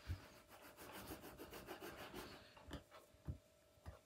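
Faint rubbing and scraping of a fluted ramekin pressed down through rolled wrap dough onto the table to cut out a round: a soft knock, a quick run of scraping strokes, then a few light taps near the end.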